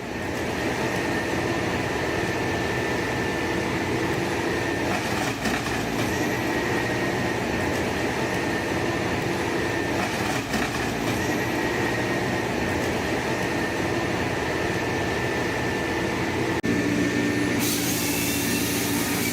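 Forestry harvester working: a steady diesel engine drone under a high, steady hydraulic whine as the harvesting head feeds, delimbs and bucks the log. A brighter hissing sound joins near the end.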